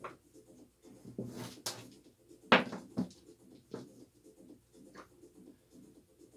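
Casino chips and a dealer puck being handled and set down on a felt craps table with wooden rails: a handful of separate clicks and knocks, the loudest about two and a half seconds in.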